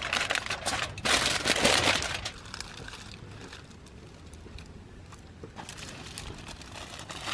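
Aluminium foil crinkling loudly as it is folded and wrapped around a food packet by hand, for about the first two seconds, then much quieter.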